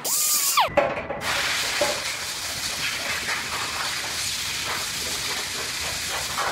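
A Blue-Point air grinder's whine falls in pitch as it spins down, followed by a few clicks. Then a steady hiss with a low rumble under it.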